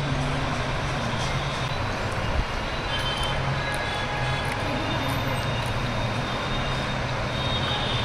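Steady rushing background noise with a low hum underneath, holding even throughout.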